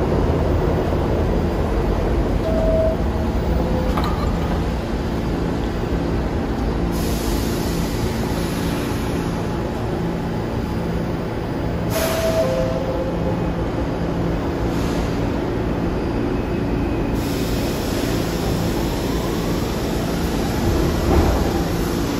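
New York City Subway B train standing at the platform: its door chime sounds twice, a descending two-note ding-dong about 3 seconds in and again about 12 seconds in, with spells of air hiss, over a steady rumble. In the last few seconds the train starts to pull out, with a rising motor whine.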